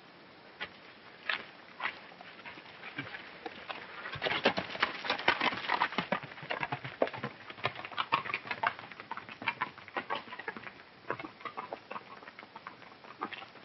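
Horses' hooves clattering as several riders ride off: a quick, irregular run of hoofbeats, sparse at first, busiest and loudest from about four seconds in, then thinning out toward the end.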